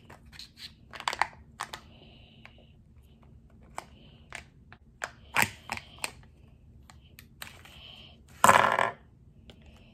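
Foil and plastic wrapping of a Kinder Joy toy capsule being peeled and handled: scattered small clicks and crinkles, with one louder crinkle of the wrapper near the end.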